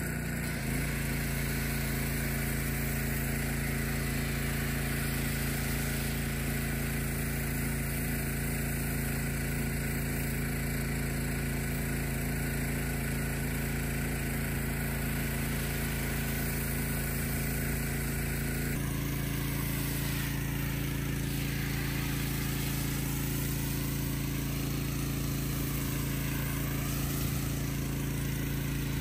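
Pressure washer running steadily while its foam cannon sprays a hissing stream of snow foam. The running note shifts a little about two-thirds of the way in.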